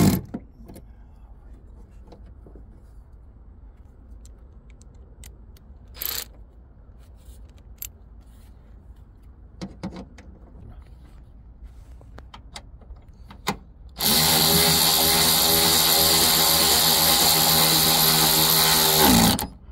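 A handheld power tool runs steadily for about five seconds in the second half, then winds down in pitch as it stops. Before it come a few faint clicks and small knocks of tools being handled.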